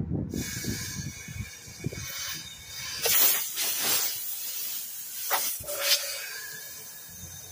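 Compressed air hissing from an air hose, starting suddenly and swelling twice before fading, as the diesel fuel tank is pressurised to push fuel into the lines and drive air out of them.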